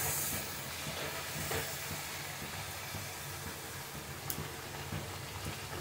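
Flat wheat-flour snack rounds deep-frying in hot oil: a steady, even sizzle, with a faint click about four seconds in.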